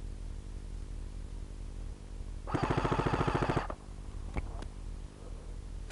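Airsoft rifle firing one rapid full-auto burst lasting about a second, followed shortly by two sharp snaps.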